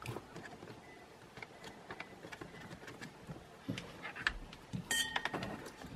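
Light plastic clicks and a few soft knocks as the hard plastic cap of a Porter-Cable cordless drill battery pack is handled and pressed onto its case during reassembly, busier about four to five seconds in.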